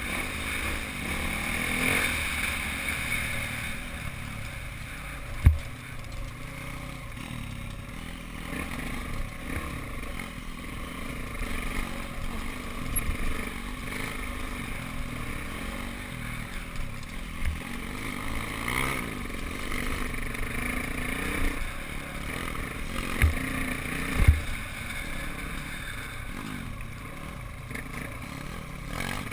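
Off-road motorcycle engine running as the bikes ride a rough dirt trail, with a few sharp knocks along the way.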